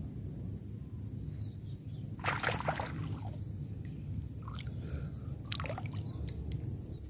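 Water splashing and sloshing in short bursts, a cluster about two seconds in and another around five seconds, over a steady low rumble.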